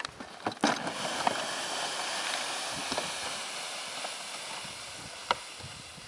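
Red plastic sled sliding down a snowy slope, a steady hissing scrape on the snow that fades as it moves away, with a few sharp clicks.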